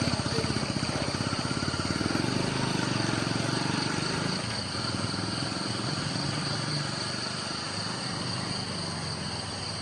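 An engine idling with a rapid, even low pulse, easing off a little after about four seconds, over a steady high-pitched insect drone.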